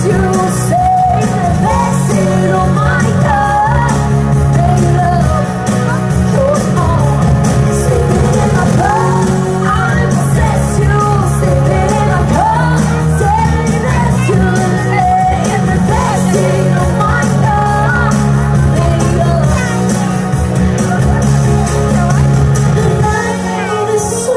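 A woman singing a pop-rock song into a microphone over a backing track with a steady beat, played loud through a stage PA.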